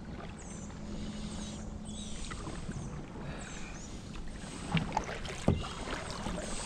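Kayak paddling: paddle strokes in the water with dripping and swishing, and two sharp knocks about five seconds in.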